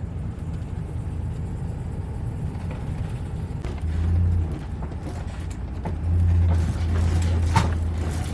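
A rented RV driving on the road: a steady low engine and road rumble that swells louder twice, with a few sharp rattles near the end.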